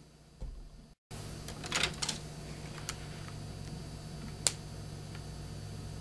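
Plastic clicks and knocks as the Rubik's Cube is handled in and out of a LEGO robot, a cluster of clicks followed by one sharp click, over a steady low hum. The sound cuts out briefly about a second in.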